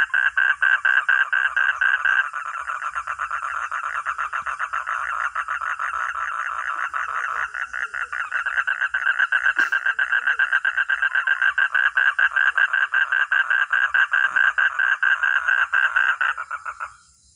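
A frog calling with a long, rapid pulsing trill that cuts off near the end. A steady chorus of crickets goes on underneath.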